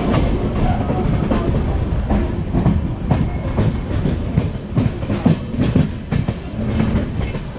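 Indian Railways passenger coach running along the track: a steady rumble with irregular clacks of the wheels over rail joints, heard from the side of the moving coach.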